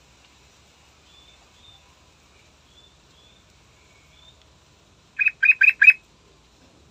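Yellow-vented bulbul (trucukan) giving four loud, short notes in quick succession about five seconds in, after a few faint high chirps.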